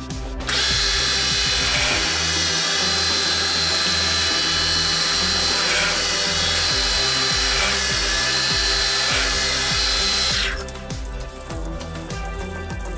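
An electric power tool runs for about ten seconds with a steady high whine, cutting in and out abruptly, over background music.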